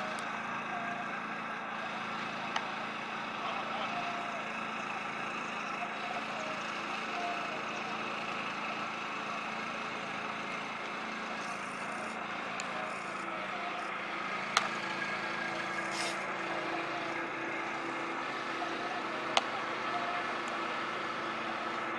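Steady open-air ambience with a low hum, broken by a few sharp knocks of baseball practice, the loudest two near the middle and near the end.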